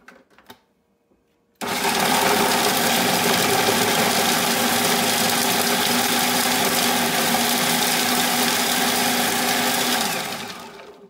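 Moulinex food processor switched on about a second and a half in, its motor and blade running steadily for about eight seconds as it grinds chopped nuts with coconut and dates, then winding down near the end. A few light clicks from handling the machine come just before it starts.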